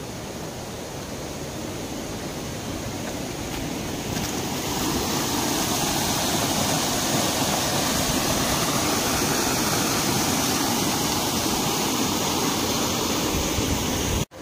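River water falling and rushing over rocks in a small waterfall: a steady rush that grows louder about four seconds in and cuts off abruptly at the very end.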